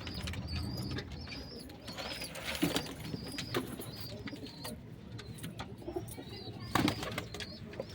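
Pigeons cooing, with short high chirping notes repeating about twice a second and a few sharp knocks.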